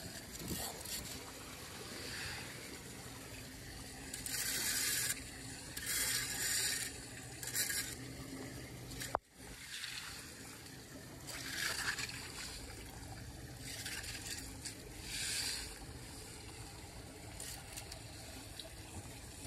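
Water trickling into a clogged storm drain, with several bouts of a small rake scraping and splashing through wet leaves and muck at the grate. A single sharp click about halfway through.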